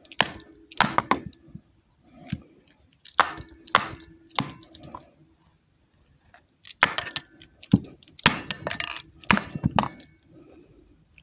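A string of sharp knocks and clinks of small hard objects, irregularly spaced, with a pause of about a second and a half midway.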